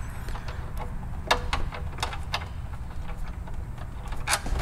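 Oil drain plug being worked loose by hand from a steel oil pan: a handful of short light clicks and taps over a steady low hum.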